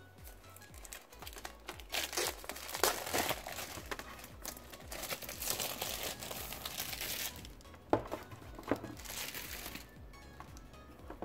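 Plastic shrink wrap crinkling as it is peeled off a metal pencil tin, in uneven rustling spells, over background music.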